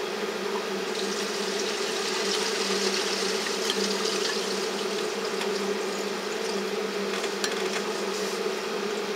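Steady hum with a hiss of running water from a reverse osmosis filter system running, with a few faint clicks.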